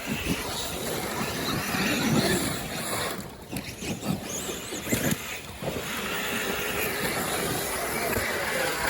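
Electric RC trucks on 6S power being driven, their brushless motors whining up and down in pitch over a steady rushing noise, with a short lull about three seconds in.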